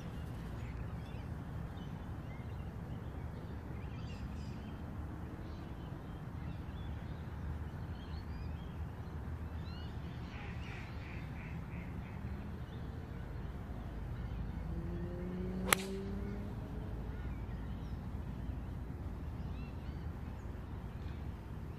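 A golf iron striking the ball off the tee: a single sharp click about two-thirds of the way through, over steady low background noise with a few faint bird calls.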